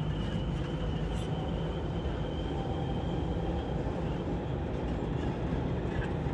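Dubai Metro train running between stations, heard from inside the carriage: a steady low rumble of the wheels on the rails, with a thin high whine that fades out a little past halfway.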